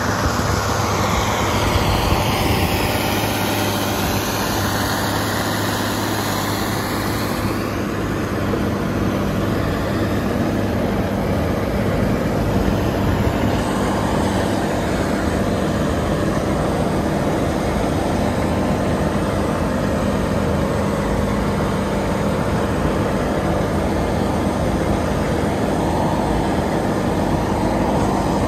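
Fiatallis FA 200 crawler tractor's diesel engine running steadily under load while it pulls a disc harrow, heard from the operator's cab.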